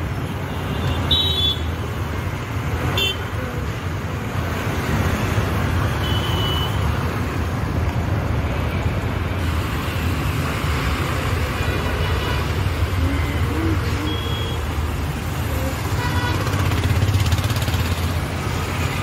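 Road traffic running steadily, with several short vehicle horn toots.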